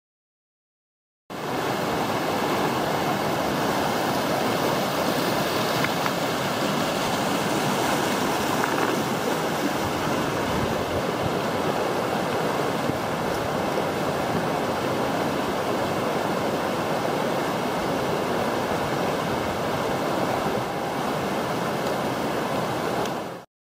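A steady, loud rushing noise starts about a second in and cuts off abruptly just before the end, with two faint steady high tones running through it.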